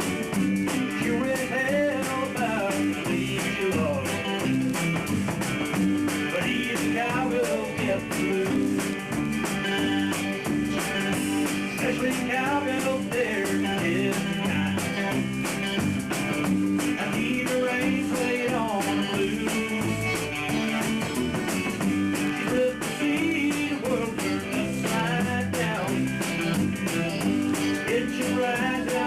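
A band rehearsing a rock song live: guitar playing over steady chords, with drums keeping the beat and no breaks.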